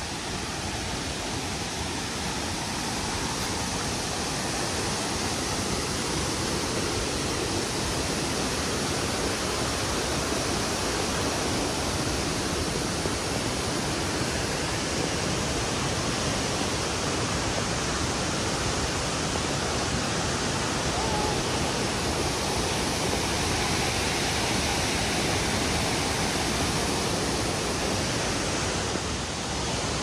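Steady roar of Victoria Falls: falling water making a continuous rushing noise that grows a little louder over the first few seconds.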